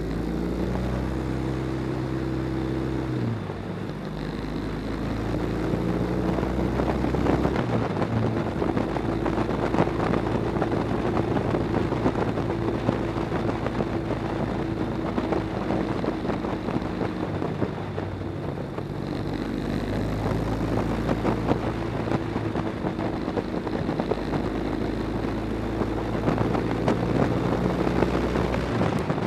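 Motorcycle engine running while riding, with wind noise on the microphone; the engine note steps in pitch a few times, about three, seven and nineteen seconds in.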